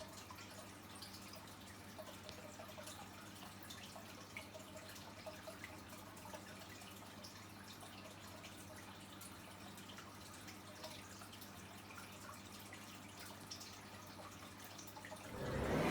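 Faint, irregular dripping of water over a low steady hum.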